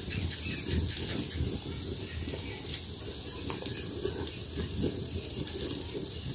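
Soup broth boiling hard in a wok over a wood fire, a steady low bubbling with a faint hiss of steam. A few sharp crackles cut through, about three seconds in.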